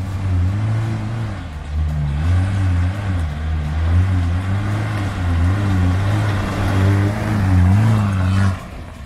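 Pickup truck's engine revving hard under load on a steep loose-rock climb, its pitch rising and falling unevenly as the tyres spin for grip. It drops away sharply near the end.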